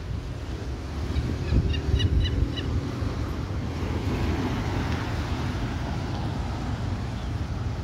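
Wind buffeting the microphone over the steady distant rush of an approaching Airbus A320neo's jet engines, the rush growing fuller from about halfway through. A quick run of short high chirps sounds about a second in.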